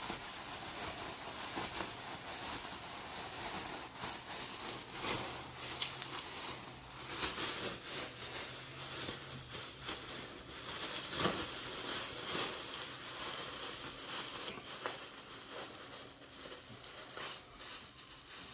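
Thin plastic grocery bag crinkling and rustling as it is squeezed and twisted around a packed food mixture to shape it into a log. The rustling is continuous and grows fainter near the end.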